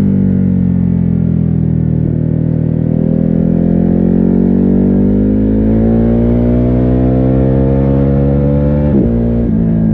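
The Ducati Hypermotard 950's stock-exhaust 937 cc L-twin under way. Its revs ease off slightly, then climb steadily for about seven seconds before a quick gearshift breaks the note near the end. The sound is muffled, with little treble, as picked up from inside a rider's backpack.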